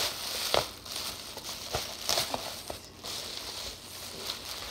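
A shiny metallic plastic bag crinkling and rustling as hands rummage inside it, with several sharp crackles in the first half.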